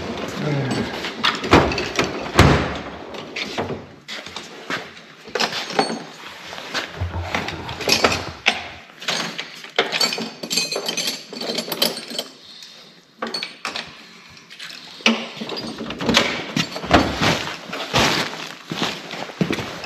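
Irregular knocks, clicks and metal clatter of hand tools, including a quarter-inch drive socket set, working under a 1968 Chevelle's dashboard to unbolt the gauge cluster.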